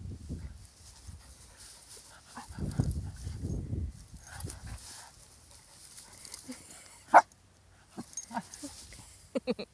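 Small dogs at play: a single sharp yip about seven seconds in and a quick run of short yaps near the end, with low rustling noise in the first half.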